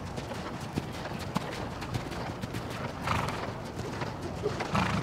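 Hoofbeats of several hunter horses cantering under saddle: an irregular run of short thuds from hooves striking the arena footing.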